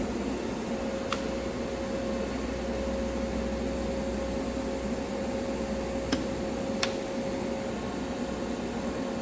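CNC lathe running through its machine reference-point return: a steady machine hum with a steady whine from about a second in until near the end, and three sharp clicks.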